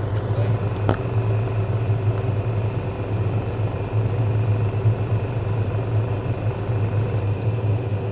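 A ko-max Silence CAM 200 dental extraction unit running on its fourth speed together with the compressor for a dental ceramic furnace: a steady mechanical hum with a low drone. A light knock comes about a second in.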